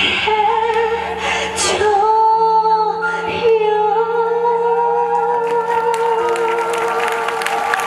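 Female singer, live through the PA, holding one long closing note with vibrato over the backing track. Audience applause begins to build near the end.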